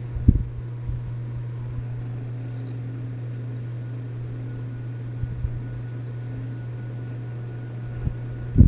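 30-inch Litex Vortex hugger ceiling fan running with six blades: a steady low motor hum, with brief low thumps just after the start and again at the end.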